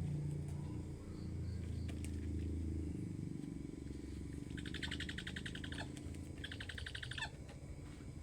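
Owl giving two short bursts of rapid, buzzy chattering, each about a second long, over a low steady rumble.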